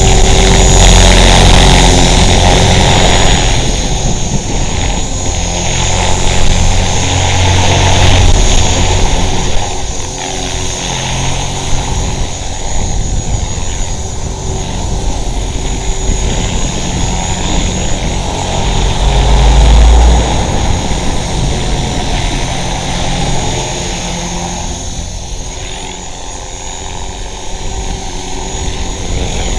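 Electric 450-size RC helicopter (Align T-Rex 450) hovering close by: a steady whine from the motor and a whirring rotor that grow louder and softer as it drifts. The blades make a wafting beat, which the pilot puts down to a blade that may be splitting. Gusts of wind rumble on the microphone now and then.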